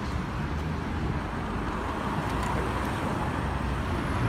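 Road traffic: cars running past on the road, a steady hum of engines and tyres.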